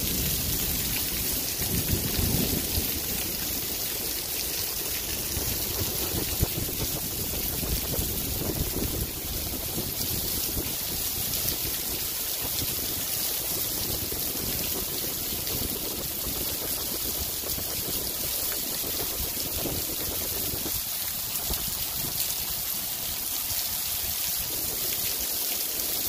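Heavy rain falling steadily, with runoff pouring and dripping off a roof edge.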